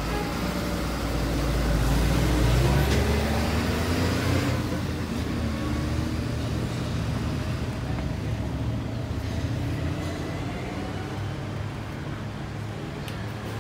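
A motor vehicle driving past on the street, its engine rumble swelling to its loudest about two to three seconds in and fading after about five seconds, leaving steady background traffic noise.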